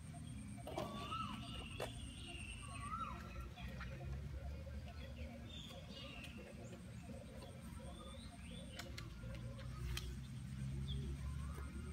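Quiet background of faint, distant voices with a few short bird-like chirps over a low rumble, and a few soft clicks.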